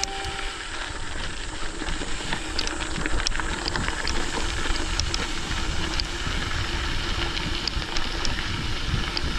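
Riding noise from a mountain bike on a gravel forest road: a steady rush of wind on the microphone and tyre rumble on gravel, with scattered sharp clicks and rattles.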